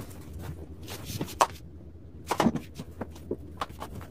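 Scattered light clicks and knocks of a massage chair's plastic armrest side panel being handled and pressed into place, with a small cluster of knocks about two and a half seconds in.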